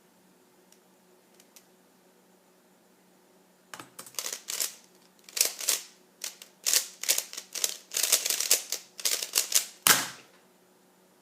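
Rubik's Cube being turned at speedsolving pace, its plastic layers clacking in fast runs for about six seconds. It ends in one hard slap about ten seconds in.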